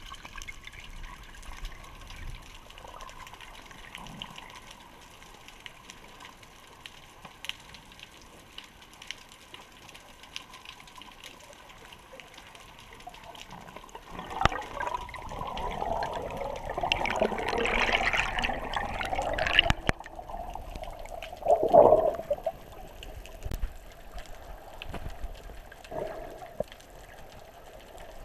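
Muffled underwater water noise heard through a GoPro's waterproof housing, low and steady at first. About halfway through it swells into louder, rushing and bubbling water sounds, with one strong burst a little later.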